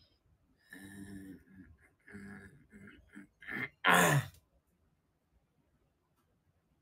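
A man's wordless vocal sounds: two short pitched sounds, then a loud sigh falling in pitch about four seconds in.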